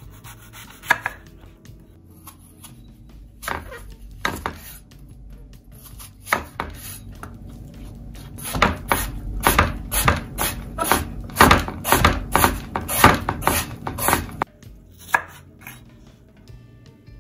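Chef's knife cutting a peeled apple on a wooden cutting board, each stroke knocking on the board. A few separate cuts come first, then a quick run of chops in the middle as the apple is cut into thin strips, and one last cut near the end.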